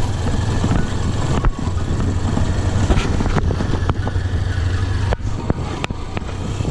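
Motorcycle engine running steadily while riding, with a low rumble under heavy wind noise on the microphone and scattered sharp knocks.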